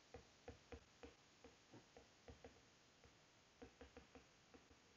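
Near silence with faint, light ticks of a stylus on an iPad screen during handwriting: a quick run of about four in the first second, a pair a little after two seconds, and a few more near the end.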